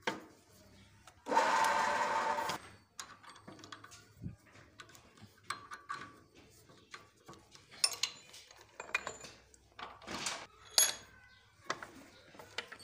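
Clinks and knocks of metal being handled at a drill press as a drill bit is fitted in the chuck and a cast levelling-box part is set in the vise. About a second in there is one louder, steady noise lasting just over a second.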